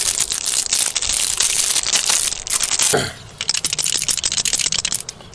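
Clear plastic packaging crinkling and tearing as it is pulled off a Subaru touch-up paint pen. The crackling is dense for about three seconds, then stops, leaving a few lighter clicks.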